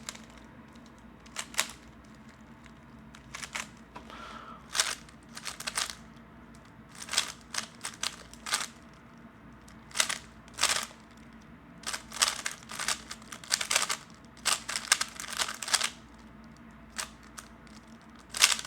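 A 3x3 Rubik's cube being turned fast in a speed solve: clusters of rapid plastic clicking and clacking as the layers are turned, broken by short pauses.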